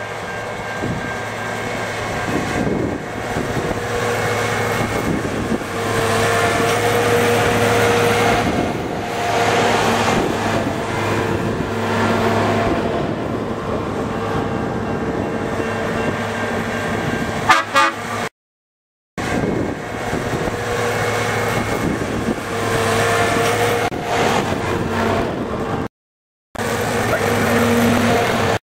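Horns of railway maintenance-of-way track machines sounding in long, overlapping blasts of several tones. The sound cuts out suddenly twice in the second half.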